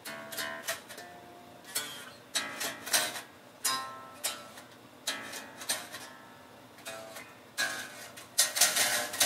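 Electric bass guitar played note by note: single plucked notes with a sharp attack, each ringing briefly and fading before the next. A louder, busier run of notes starts near the end.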